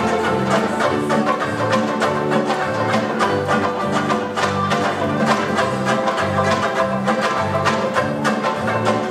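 Banjo ukuleles (banjoleles) strummed briskly and steadily in a bouncy music-hall rhythm, with low bass notes moving beneath.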